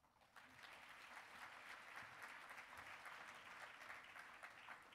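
Audience applauding: many hands clapping, fairly quiet and steady, starting a moment after the speech ends.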